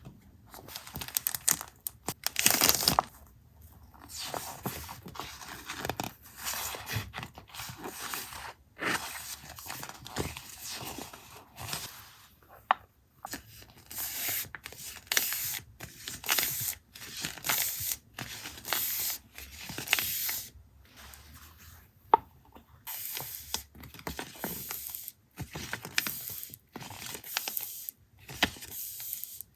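Paper being torn and handled close up: repeated short rips and rustles in quick bursts, with a few brief pauses.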